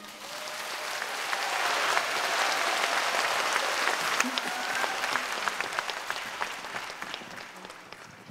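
Theatre audience applauding. The clapping swells over the first two seconds, holds steady, then tapers off near the end.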